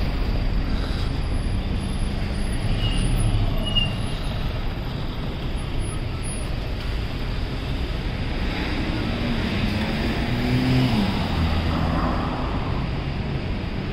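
City road traffic: vehicles passing on a street with a steady rush and low engine hum, swelling louder around ten seconds in.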